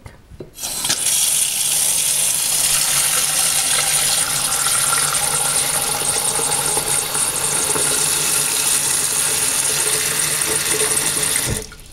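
Kitchen faucet running a steady stream into a saucepan in a steel sink, filling it with water over three eggs. It comes on about a second in and shuts off near the end.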